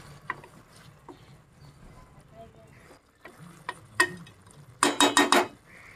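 A metal spoon knocking against an aluminium cooking pot. A few light taps come first, then four quick, sharp, ringing clinks about five seconds in.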